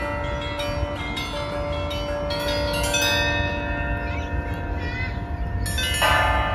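Federation Bells, upturned harmonic bells hit by mechanical strikers, ringing a sequence of separate strikes whose long tones overlap, with the loudest strike near the end. A steady low rumble runs beneath.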